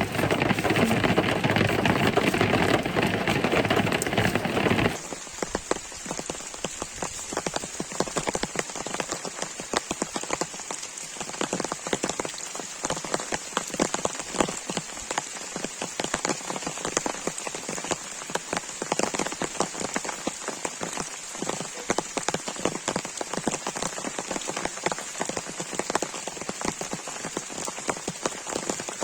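Heavy rain: a dense, steady patter of many individual drops striking a surface. For about the first five seconds a louder, fuller rushing noise covers it, then cuts off abruptly.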